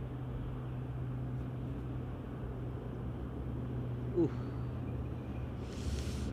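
A steady low hum of a motor running continuously, with a brief short vocal sound about four seconds in and a short hiss near the end.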